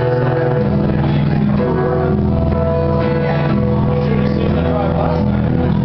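Live band playing an instrumental passage with no vocals: strummed acoustic guitar and electric guitar over a cajon beat, with steady sustained low notes.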